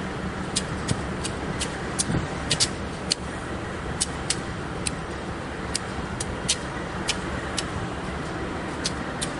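GE diesel-electric locomotives (Union Pacific C44-9W and C40-8W, 16-cylinder 7FDL engines) idling at a standstill with a steady low hum, with irregular sharp clicks, roughly one or two a second, over it.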